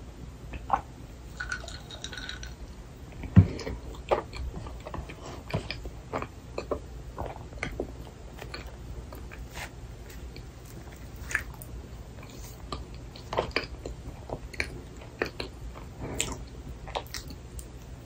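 Close-miked chewing and biting of a frozen Yonsei milk cream bun (soft bread filled with whipped cream), with scattered wet mouth clicks and smacks. A single thump sounds about three and a half seconds in.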